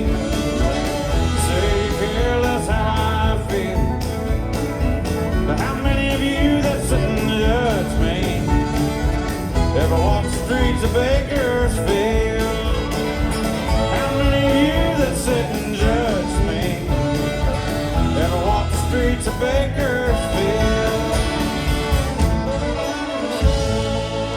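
Live country band playing the closing bars of a song; the bass and drums drop out near the end as the song finishes.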